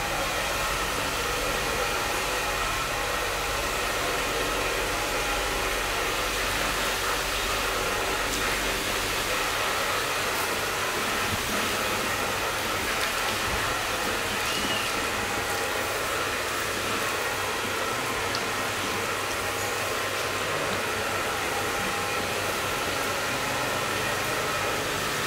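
Steady hiss of water running from a shampoo-basin hand sprayer, rinsing hair and splashing into the basin.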